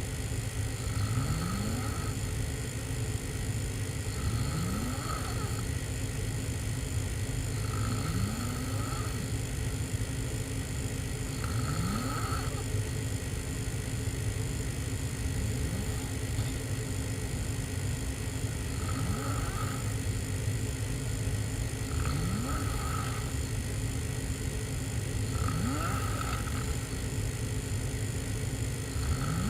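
A person snoring heavily while sleeping on their back with the mouth open, one snore about every three and a half seconds, each rising briefly in pitch. A steady low drone runs underneath.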